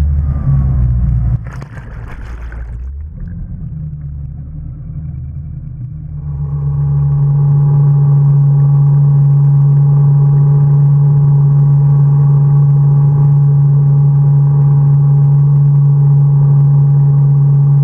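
1997 Sport Nautique's inboard engine running at a steady speed while towing a wakesurfer, heard at the stern: a constant, unchanging drone from about six seconds in. Before it comes a quieter stretch with a brief rush of water about two seconds in.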